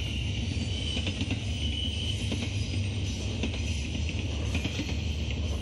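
Norfolk Southern intermodal freight train rolling slowly past: a steady low rumble with faint irregular clicks from the wheels.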